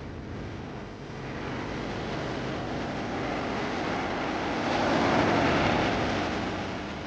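Ocean surf: a wave builds, breaks loudest about five seconds in, then washes back and fades.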